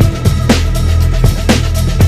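Electronic background music with a steady beat, a drum hit about twice a second over a deep bass line.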